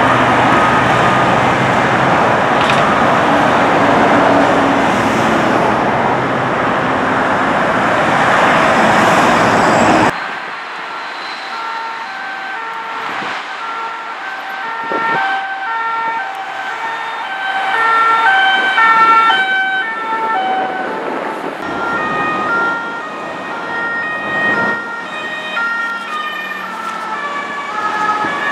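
Heavy motorway traffic noise for about the first ten seconds, then French emergency-vehicle two-tone sirens alternating between two pitches over quieter traffic.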